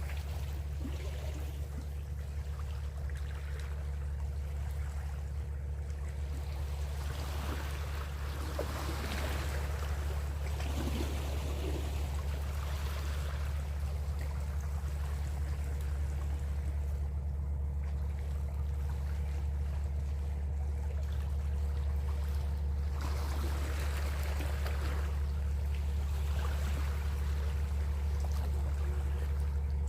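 Boat's motor running with a steady low hum, with water sloshing and splashing against the hull twice, for a few seconds each time.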